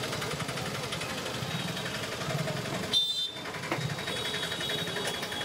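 Onion pakoras deep-frying in a large kadai of hot oil, sizzling steadily, with a short drop a little past halfway.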